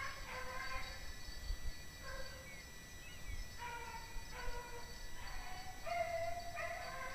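Rabbit hounds baying on a running rabbit: a series of drawn-out bawls from more than one dog at different pitches.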